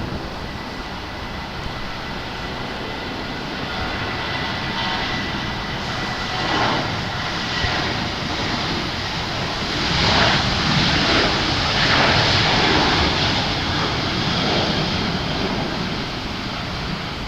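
Boeing 737-700 jet engines (CFM56-7B turbofans) at takeoff thrust as the airliner passes: a dense, steady jet noise that grows to its loudest around ten to thirteen seconds in and then eases off, with a thin high whine in the first few seconds.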